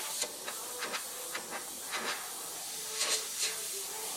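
Airbrush spraying paint with a steady hiss, broken by short, sharper spurts about twice a second as texture is worked in.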